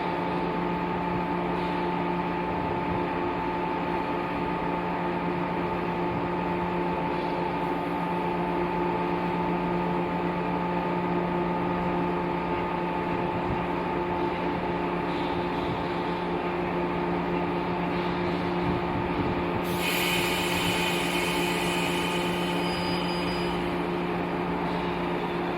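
An 811 series electric train running at a steady speed, its abnormal-noise car giving a steady whine of several pitches over the running noise, the 'jet sound' that the car has had since its general inspection. A hiss joins in about twenty seconds in and fades a few seconds later.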